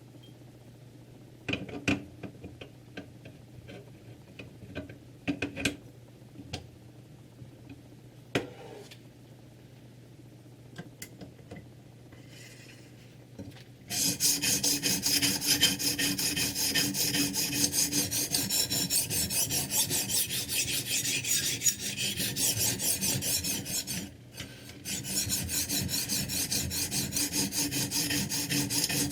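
Scattered clicks and knocks of handling. Then, about halfway in, a sharpening stone on a Ruixin Pro 3 guided-rod sharpener starts rasping along a kitchen knife's edge in rapid back-and-forth strokes, with one short break near the end.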